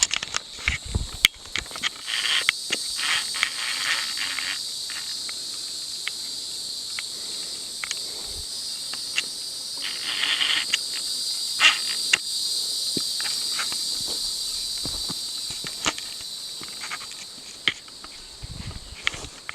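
Cicadas buzzing in a steady, high drone, with the scattered crunch and scuff of footsteps on a rocky trail.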